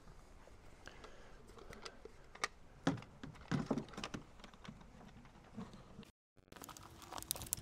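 Faint, scattered plastic clicks and knocks from a Fiat Ducato's air filter box as a new filter is seated and the lid's snap clips are fastened.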